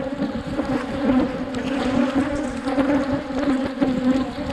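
Many honeybees buzzing around an opened hive, a steady low hum from the swarm of Africanized honeybees.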